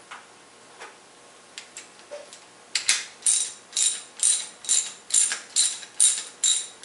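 Socket ratchet wrench with a 17mm socket clicking as it is worked back and forth to loosen the magnetic drain plug on the bottom of a Rotax Type B gearbox. A few faint clicks at first, then from about three seconds in a steady run of clicking strokes, about two a second.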